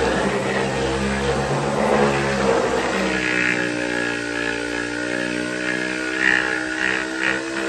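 A motor running steadily, with a humming tone throughout. In the second half, scratchy sanding strokes rasp over it.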